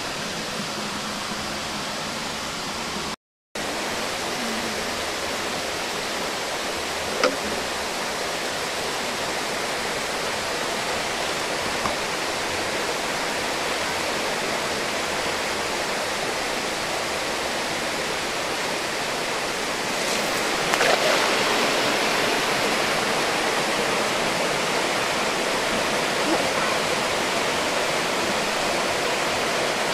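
Steady, even hiss of outdoor background noise, a little louder from about twenty seconds on, with one faint knock about seven seconds in. The sound drops out for a moment about three seconds in.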